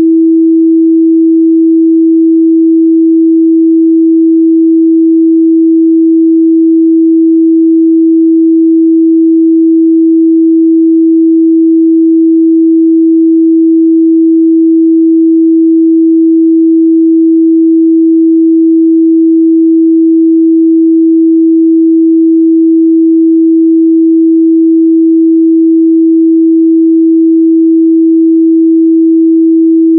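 A loud, steady 326 Hz sine-wave test tone, one pure unbroken pitch in the lower midrange, played for checking speaker and headphone response.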